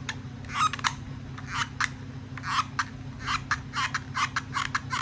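Cap Ayam 6-inch quick-release bar clamp being pumped by its trigger handle, tightening on pipes: a string of short ratcheting clicks, several a second at an uneven pace.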